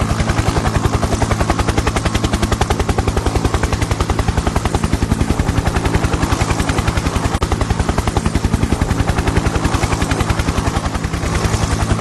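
Helicopter rotor and engine running steadily: a rapid, even chopping beat over a steady low drone.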